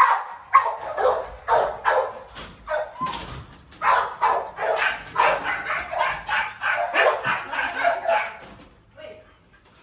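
Dog barking rapidly and repeatedly, about three barks a second, stopping shortly before the end.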